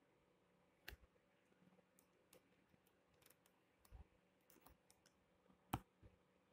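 Faint, irregular clicks of a computer mouse against near silence, a dozen or so spread over several seconds, the loudest near the end.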